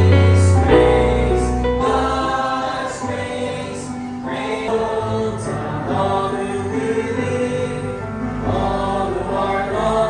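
Congregation singing a hymn together, led by a song leader. Piano music fades out in the first couple of seconds as the singing takes over.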